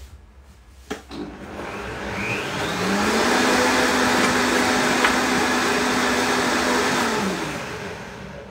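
Electric blender blending a satay dressing with chili: after a click, the motor spins up over a couple of seconds, runs steadily, then winds down near the end.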